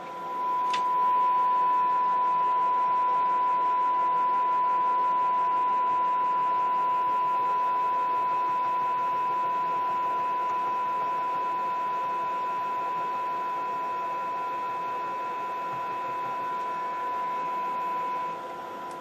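A steady 1 kHz audio test tone sounding continuously over light hiss, with a faint click just after it comes on; the tone dips briefly near the end.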